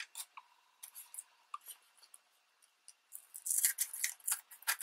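Scissors snipping through glued magazine paper, trimming the overhanging strip ends off a card: a few faint clicks at first, then a quick run of cuts from about three and a half seconds in.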